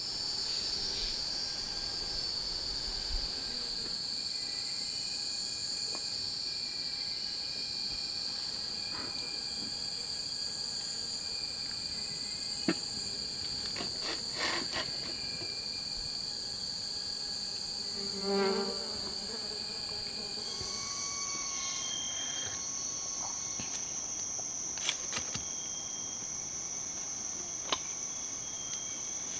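Steady high-pitched chorus of insects, crickets or cicadas, in two shrill bands; about two-thirds of the way in, the chorus shifts to a higher pitch. A few scattered sharp clicks and short faint chirps sit over it.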